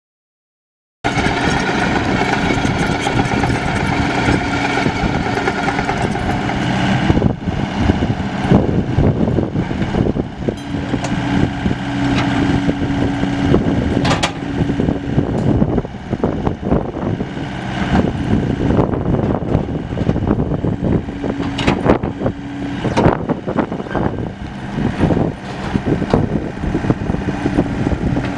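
Komatsu PC75UU-2 compact excavator's 4D95L four-cylinder diesel engine running, starting about a second in. Its level and pitch vary, a hum comes and goes, and there are a few sharp knocks.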